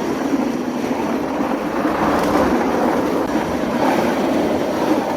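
Steady rumbling rush of a rider going down a long sky slide, the friction and rattle of the ride along the chute.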